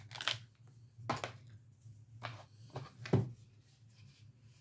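A handful of small, sharp clicks and taps from handling a makeup palette and a loose eyeshadow pan, over a faint steady low hum.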